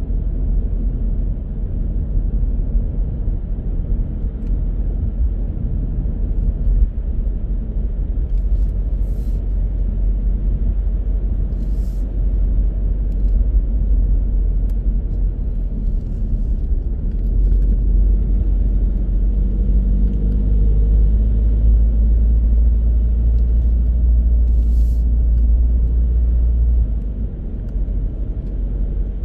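Car driving on city roads: a steady low rumble of engine and tyre noise, which swells for about ten seconds past the middle and then eases near the end.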